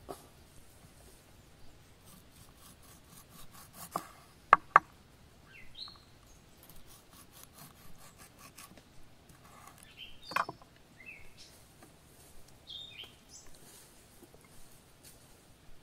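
Food preparation on a wooden cutting board: hands rubbing and handling a raw chicken and a chef's knife slicing a tomato, with two sharp knocks close together about four and a half seconds in and another about ten seconds in. Short falling bird chirps sound several times in between.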